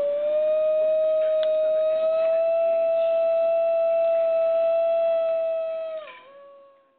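New Guinea singing dog howling: one long, high-pitched, pure-toned note held steady for about six seconds, which dips lower near the end and fades out.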